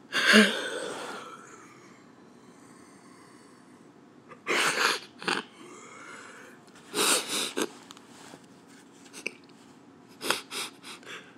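A woman sniffing and breathing hard in short bursts, four or so spread across a quiet room: she is choked up, close to tears.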